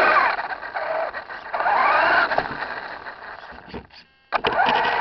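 Electric motor and geared drivetrain of a Traxxas Slash 4x4 radio-controlled truck whining, heard from on board. The pitch falls as the truck slows, rises again as it speeds up about a second and a half in, fades away to almost nothing about four seconds in, then picks up again near the end.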